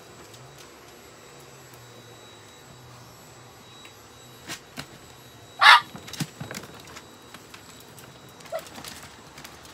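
Chihuahuas scrabbling at a wire pen: light clicks and knocks, and one short, sharp yap about halfway through, the loudest sound.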